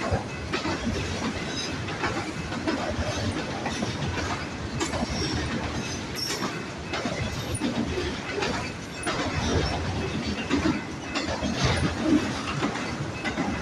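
Freight cars of a manifest train rolling past, their steel wheels clacking and knocking irregularly over the rail joints.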